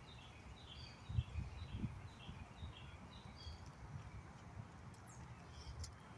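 A bird calling in a fast series of short falling notes, about three a second, that stops about three and a half seconds in. Low rumbling thumps on the microphone run underneath and are loudest about a second in.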